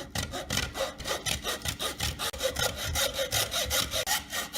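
Hand saw cutting into a golf ball's plastic cover with quick, even back-and-forth strokes, several a second.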